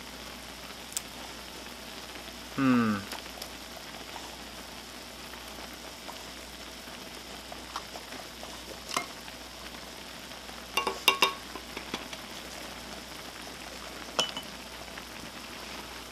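Ramen simmering in a metal pot, a steady bubbling hiss, with sharp taps and metallic clinks as eggs are cracked against the pot and a spoon works in it; a cluster of clinks comes about eleven seconds in. A short falling vocal sound about three seconds in is the loudest moment.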